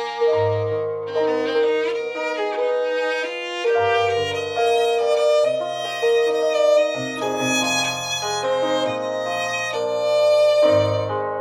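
Background music led by violin over a bass line, with notes held in a slow melody.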